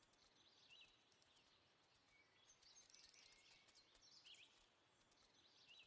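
Very faint woodland ambience: a small bird giving short high chirping phrases about every one and a half to two seconds, four times, over a low steady hiss.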